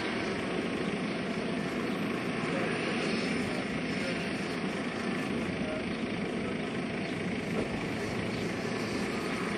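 A JetCat PHT3 gas turbine and the main and tail rotors of a large radio-controlled Hughes 500E model helicopter, running steadily as it hovers low: an even turbine whine under a rushing rotor wash.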